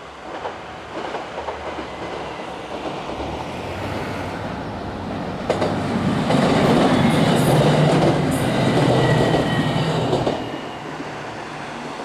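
Three-car KiHa 189 diesel limited express train approaching and passing, its diesel engines running with a steady low hum and its wheels clicking over the rail joints. It is loudest for about five seconds from the middle, then fades quickly.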